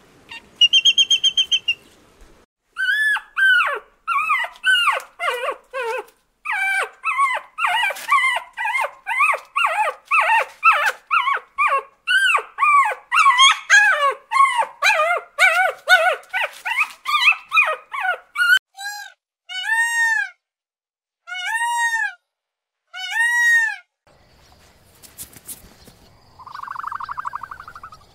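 Small dog yapping in rapid, high-pitched barks, followed by four slower single yelps about a second and a half apart.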